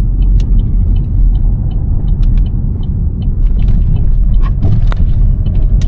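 Steady low rumble of a car on the move, heard from inside, with small scattered clicks and rattles.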